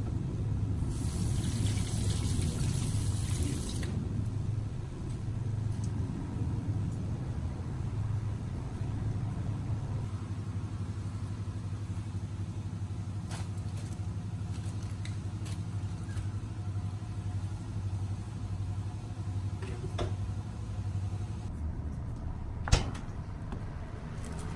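A steady low hum, with a single sharp click about 23 seconds in.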